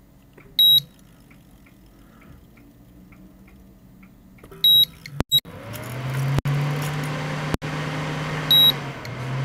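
Induction hob's electronics beeping three times, a short high beep about every four seconds. About halfway through, its cooling fan starts up and runs with a steady whir and a low hum: the repaired hob is powering up.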